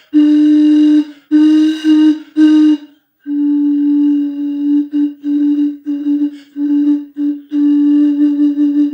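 Empty bottle blown hard across its mouth, sounding one steady hooting note. There are three strong blasts in the first three seconds, then a longer run of the same note broken into short repeated notes.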